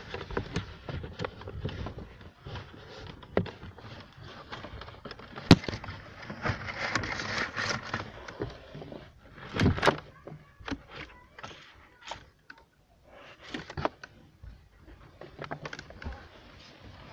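Hands working behind a car's plastic interior trim, pulling a camera wire through: rustling with scattered clicks and knocks, and a sharp knock about five seconds in and another near ten seconds.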